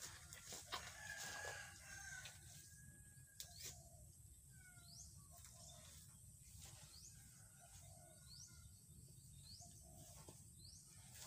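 A rooster crows faintly once near the start, followed by a bird repeating a short rising call about once a second. A few sharp knocks come from a shovel digging into soil.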